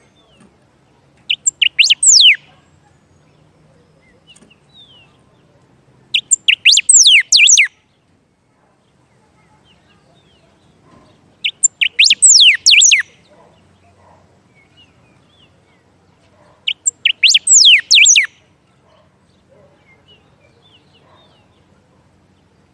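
A songbird singing close by: four short phrases of rapid, falling whistled notes, one about every five seconds.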